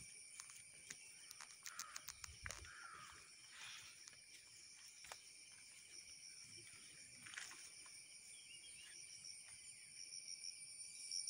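Faint, steady high-pitched chirring of insects such as crickets, pulsing near the end, with a few faint clicks and rustles in the first few seconds.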